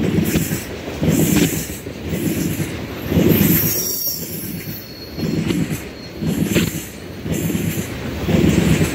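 Freight train of crude oil tank cars rolling slowly around a curve. The wheels clatter in a rhythm, swelling about once a second, under a thin high steady squeal from wheel flanges on the curved rail.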